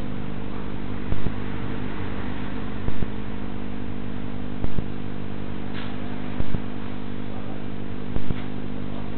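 A steady electrical hum made of several fixed tones over hiss, with a short loud click about every second and three-quarters. This is typical of a CCTV recorder's audio channel picking up line noise.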